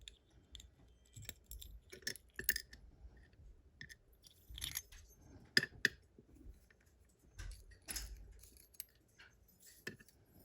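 Light, irregular metal clicks and clinks of small lock parts and tools being handled as a Vachette VIP lock cylinder is taken apart, its springs and pins picked out and set down; a few sharper clicks about five and a half and eight seconds in.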